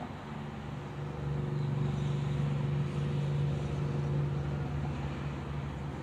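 A steady low engine hum at one even pitch, growing louder about a second in and easing off slowly near the end.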